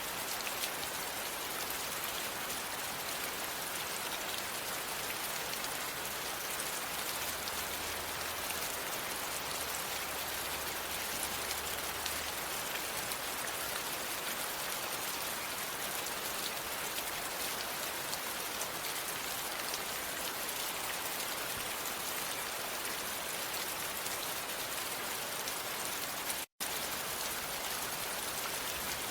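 Steady rain falling, an even hiss of drops with no let-up. The sound cuts out for a split second near the end.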